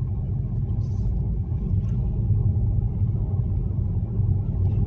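Steady low rumble of a 2020 Toyota Supra's 3.0-litre turbocharged inline-six and its road noise, heard inside the cabin while cruising at an even pace.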